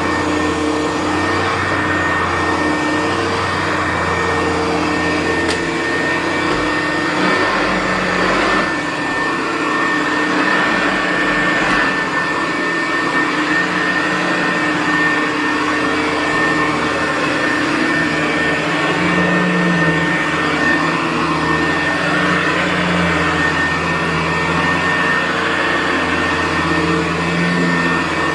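Hoover U4007 upright vacuum cleaner running steadily on carpet, its motor and four-row brushroll going continuously, with small shifts in the hum as it is worked over the floor.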